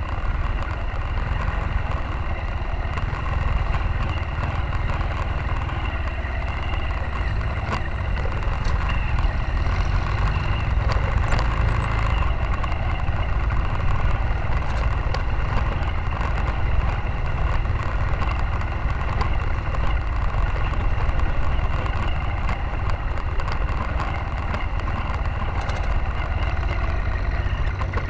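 Motorcycle engine running steadily while riding a rough dirt road, heard from the bike itself, with a strong low rumble underneath.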